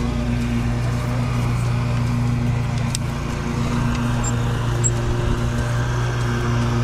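An engine or motor running steadily at an even speed, giving a constant hum that eases briefly in the middle.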